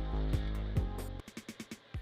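Background music with a steady beat; the bass and held chords drop out about a second in, leaving only the drum hits.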